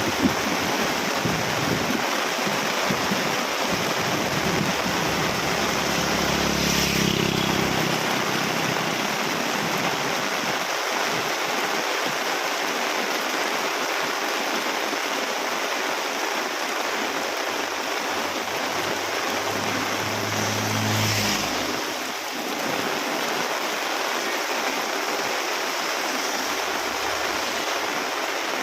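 Heavy rain falling steadily in a dense, even hiss. A low rumble swells twice, about a fifth of the way in and again about three quarters of the way through.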